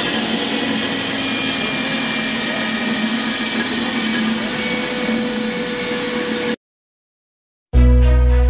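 KRU Beaver 50 pipe threading machine running steadily, its die head turning on a clamped pipe. The machine sound cuts off suddenly about six and a half seconds in, and after a second of silence electronic music with a beat starts.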